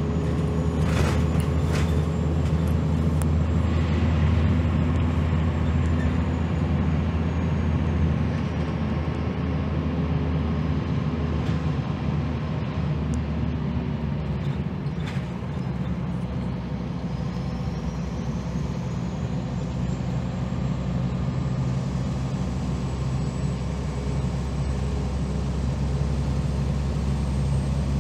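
Inside a 2001 Gillig Phantom transit bus: its Cummins ISM diesel and Allison B400R automatic transmission running as the bus drives, a steady low drone with a thin high whine that falls away around eight seconds and climbs again from about sixteen seconds. A couple of brief knocks near the start and midway.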